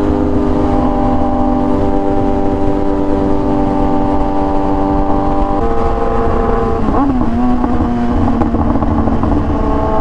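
Kawasaki ZX-10R inline-four engine running at a steady speed under a heavy rush of wind noise. Its note steps up about five and a half seconds in, dips and glides briefly around seven seconds, then steps up again near the end.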